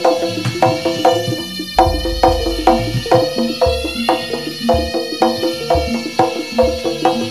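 East Javanese jaranan music played by a gamelan-style ensemble. Struck, ringing pitched percussion keeps up a quick, steady pattern over deep drum and bass beats.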